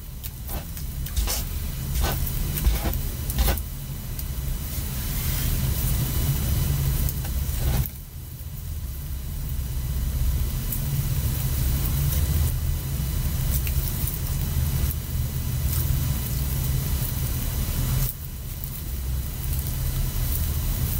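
Hands squeezing and stretching sticky sugar slime, with a string of sharp sticky clicks in the first few seconds, over a steady low rumble.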